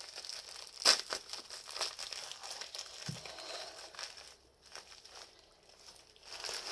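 Bubble-lined plastic sleeve crinkling and crackling as it is handled, with the sharpest crackle about a second in and quieter handling for a couple of seconds past the middle.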